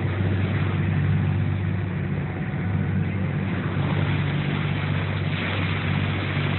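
Tour boat's engine running steadily with a low hum, under a steady hiss that grows a little brighter about five seconds in.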